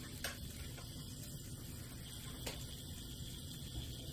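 Faint, steady sizzle of beef trimmings frying in a small cast-iron skillet, with a couple of faint clicks.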